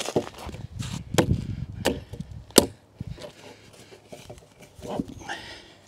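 A heavy timber sill beam being knocked and pried into place on the foundation with a steel bar: four sharp wooden knocks in the first couple of seconds, with a low rumble of the heavy timber shifting between them, then a few quieter knocks and scrapes.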